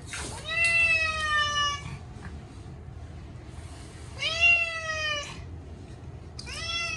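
Short-legged Munchkin cat meowing loudly in protest at being bathed: three long, drawn-out meows, each sliding slightly down in pitch, the last cut off at the end.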